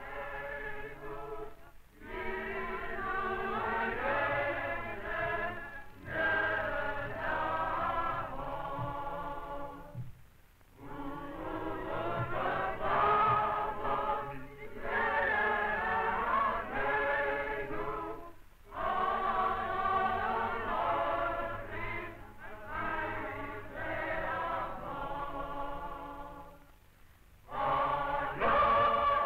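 A choir singing, several voices together, in phrases of a few seconds with short breaks between them. The sound is dull and thin, as on an old film soundtrack.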